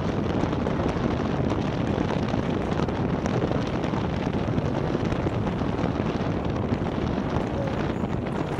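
Steady rush of wind buffeting the microphone, mixed with water rushing past the hull of a Maxi 72 racing yacht under sail.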